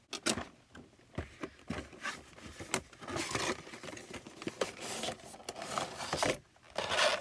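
Cardboard figure box being opened by hand: scraping, rustling and small clicks of the flaps and sides, then a clear plastic blister tray sliding out of the box near the end.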